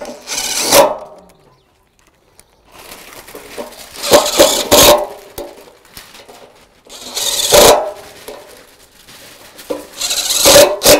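Cordless DeWalt impact driver hammering countersunk screws into a pergola post's foot plate, in four short runs with pauses between, one run per screw.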